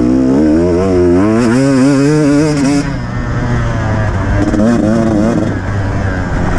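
Beta 200 RR two-stroke enduro motorcycle engine under hard riding on a dirt course, its pitch climbing and wavering with the throttle for about three seconds. It then backs off and picks up again near the end.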